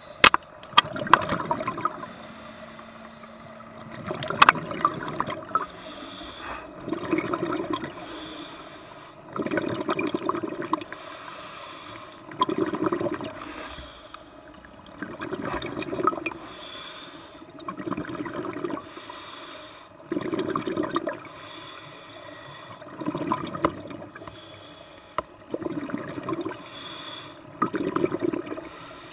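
Scuba diver breathing through a regulator underwater: a hissing inhale, then a bubbling exhale, repeating every two to three seconds. A few sharp knocks in the first five seconds.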